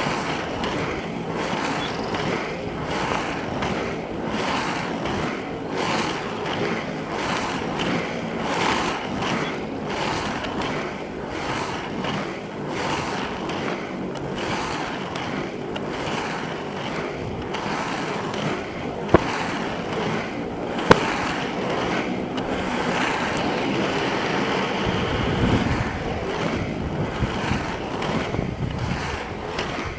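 Skateboard wheels rolling fast over asphalt, a steady rumbling roar with wind on the microphone, and two sharp clicks about two-thirds of the way through.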